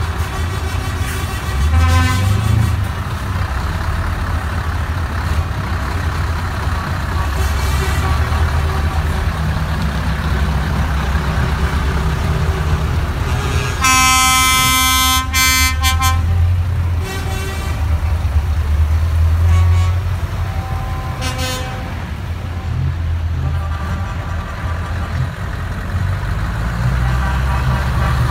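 A convoy of heavy diesel lorries driving slowly past, their engines rumbling steadily. An air horn gives one long, loud blast about halfway through, and there are several shorter horn toots before and after it.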